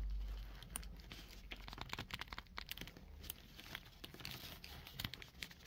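Faint handling noise from an S.H.Figuarts Darth Vader action figure: its fabric cape rustles and its plastic parts give a string of small irregular clicks as the head is pushed onto the neck peg.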